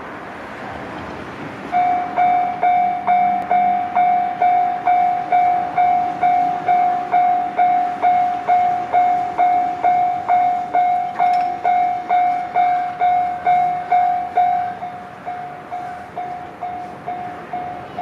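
Japanese railway level-crossing warning bell starting up about two seconds in: a clear electronic ding repeating about two and a half times a second, warning of an approaching train. About three-quarters of the way through it drops to a lower volume and keeps ringing.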